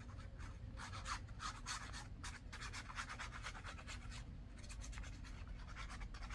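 Nozzle of a squeeze tube of glue scratching along the back of a strip of paper as glue lines are drawn on it, with light paper handling: faint, irregular scratchy strokes.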